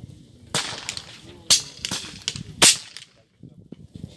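Three sharp air rifle shots about a second apart on a firing line, the last the loudest.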